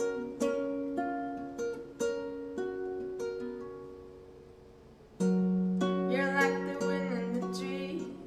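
Two acoustic guitars, one of them nylon-string, picking single ringing notes that fade away. About five seconds in, a woman's voice enters, singing long held notes over the guitars.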